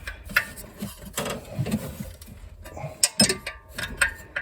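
Hand tools working on the fan and water-pump bolts of a 1987 GMC S15: irregular metallic clicks and clinks, with a few sharper knocks.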